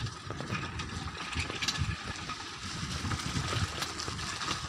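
Footsteps on a wet, muddy dirt path, with uneven low rumbling from a handheld phone microphone being carried along.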